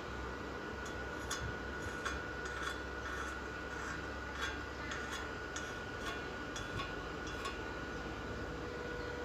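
Light, irregular metallic clinks, around a dozen spread over several seconds, of a stick-welding electrode touching a thin steel square tube, over a steady hum.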